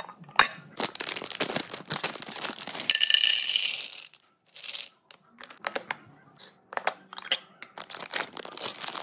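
Plastic and foil snack packaging crinkling while a hand handles a clear plastic storage container, with sharp clicks near the start. A dense rattling rustle of Maltesers being poured from their bag into the plastic container stops abruptly about four seconds in. More crinkling of a foil candy bag follows near the end.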